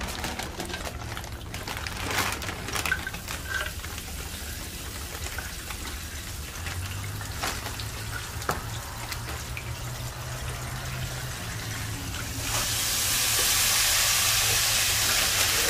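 Frozen seasoned fries poured from a plastic bag into a perforated metal fryer basket, with bag crinkling and light rattling. About twelve seconds in, the basket goes into the deep fryer's hot oil and a steady sizzle starts suddenly and grows loud.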